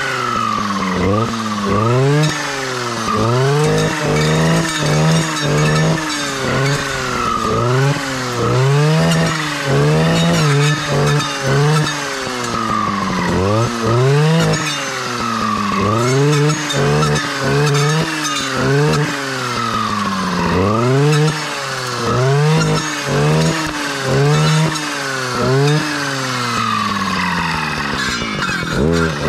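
Stihl clearing saw's two-stroke engine revving up and dropping back over and over, roughly once a second, as the blade cuts through saplings and brush.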